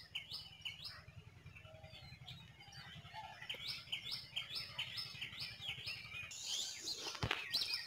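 A songbird calling a quick run of repeated chirps, about three a second. The calls come in two bouts with a quiet pause between them.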